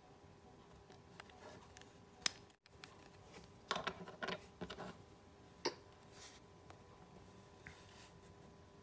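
Plastic and metal Beyblade parts (a red plastic track and bottom, a metal wheel) clicking and clattering as they are handled and set down on a table. There is a sharp click about two seconds in, a quick cluster of clicks around four seconds, and one more click shortly before six seconds.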